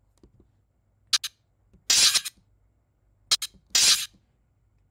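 Sword-drawing sound effect played twice: each time a quick metallic double click and then a bright scraping swish of the blade sliding out of its sheath, lasting about half a second.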